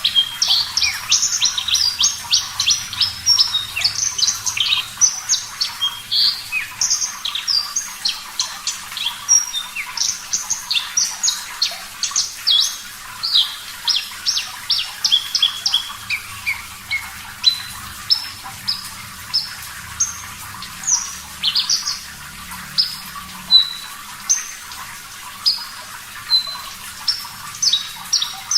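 Javan bush lark (branjangan) singing a rapid run of short chirps and trills, thinning after about halfway to spaced single notes, over a steady background of running water.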